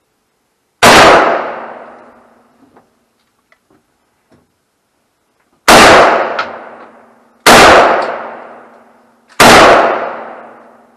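Four single rifle shots from an AK-pattern rifle in 7.62×39, each a sharp crack with a long echoing tail. The first comes about a second in, then after a pause three more follow about two seconds apart.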